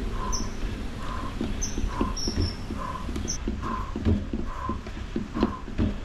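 Feet stepping and tapping on an outdoor mat in an uneven rhythm during standing knee raises. Birds call in the background: a short note repeating about once a second and a few brief high chirps.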